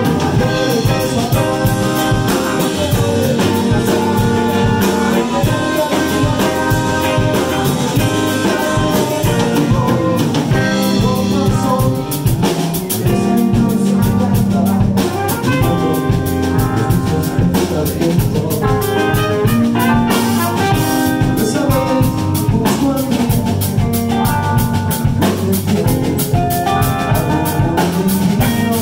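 Live band playing with drum kit, electric bass, electric guitar and trumpet, with a steady beat.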